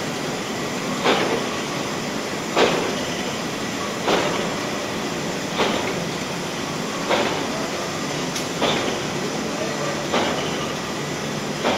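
Instant-noodle production line running: a steady mechanical noise from the moving mould conveyor, with a sharp metallic clank repeating evenly about every second and a half.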